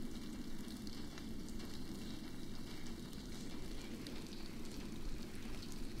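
Steady outdoor background noise, a low even rushing with faint hiss above it and no distinct events.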